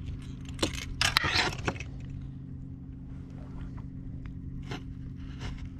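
Steady hum of a Minn Kota Terrova electric trolling motor pulling the boat slowly, with clicks, knocks and a louder scrape about a second in as a freshly landed white bass is handled in the boat.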